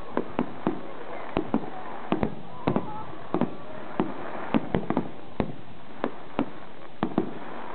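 Aerial fireworks going off in a rapid, irregular series of sharp bangs, about two or three a second.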